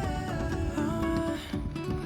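Background pop song: acoustic guitar strumming with a steady beat, between sung lines.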